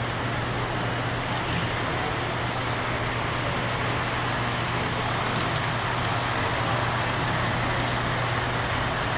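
Steady background ambience of an indoor exhibit hall: a constant low hum under an even hiss of noise, with no distinct events.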